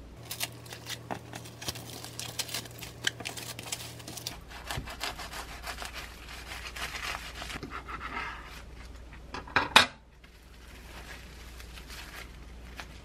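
Plastic cling film crinkling as a sandwich is wrapped tightly, then a serrated bread knife sawing back and forth through the wrapped sandwich on a wooden cutting board. A short, loud knock comes just before ten seconds in.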